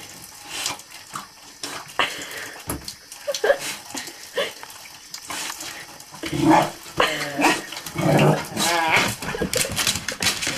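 A dog barking and whining excitedly, with most of the calls coming in the second half, over short knocks and scrapes as she moves about in the tub.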